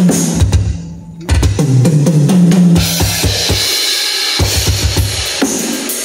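Drum kit played, a Pearl Mimic Pro electronic kit's drum sounds with acoustic cymbals: quick fills running down the toms, with a brief dip about a second in. From about three seconds in, cymbals ring over rapid bass drum strokes.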